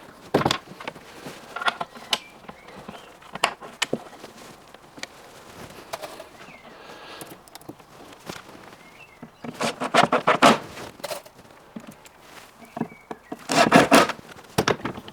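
Cordless drill-driver driving screws in two short bursts of about a second, one near the middle and one near the end, between light clicks and knocks of parts and tools being handled.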